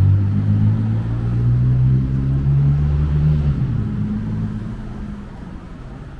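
Motor vehicle engine running close by, a low steady hum that drops away after about three and a half seconds and fades out.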